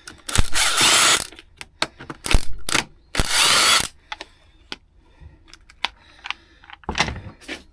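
A tool turning out the Torx T27 screws of a Stihl FS160 brushcutter to strip it down: three short loud bursts in the first four seconds and another near the end, with small clicks in between.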